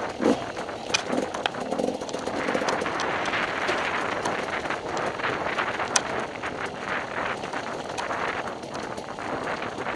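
Riding noise of an enduro motorcycle on a forest trail, heard from the onboard camera: a steady rushing noise that builds about two seconds in, with scattered knocks and clatters. A sharp knock comes right at the start and another about six seconds in.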